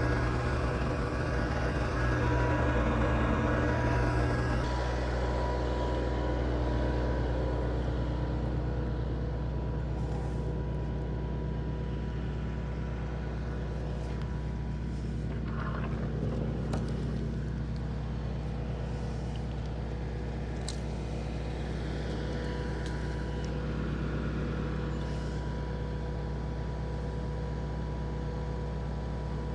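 Kubota L3560 diesel tractor engine running steadily at PTO speed, driving a WoodMaxx WM-8M PTO wood chipper as it auto-feeds and chips a large pin oak limb, with a few short cracks in the middle.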